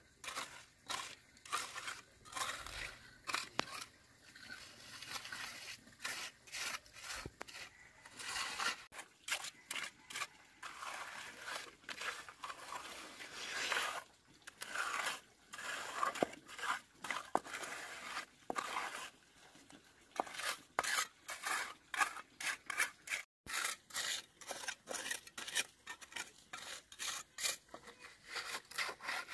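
Repeated scraping and rubbing strokes, uneven and spaced out at first, then quicker and more regular after a brief break about two-thirds of the way through.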